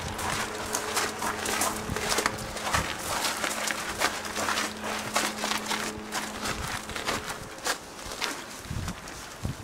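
Footsteps of several people walking on a hard walkway: quick, irregular clicks and scuffs. A steady hum runs under them and stops about three-quarters of the way through.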